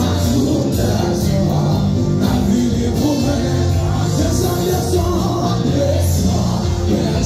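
Loud live church worship music: a band with heavy bass playing while voices sing.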